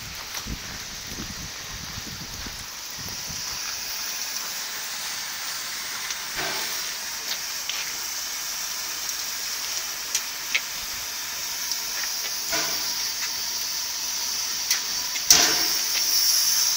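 Narrow-gauge steam locomotive standing with steam hissing steadily from around its cylinders, with a few sharp clicks and knocks, the loudest a little over three-quarters of the way through.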